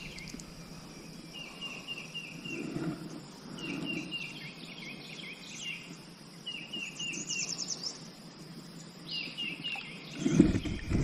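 A songbird singing a short phrase of about five quick repeated notes, again every two and a half to three seconds, over faint outdoor ambience. Near the end come louder knocks and rustling of handling close to the microphone.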